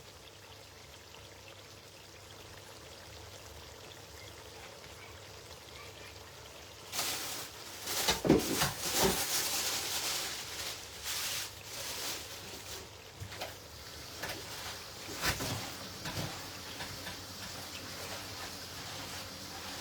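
Water pouring and splashing in irregular spurts starting about seven seconds in, after a faint steady hiss.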